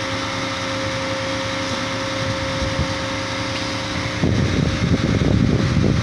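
Truck-mounted concrete pump running steadily, its engine and hydraulics giving a constant hum with a steady whine. About four seconds in, a louder, rougher rumble sets in.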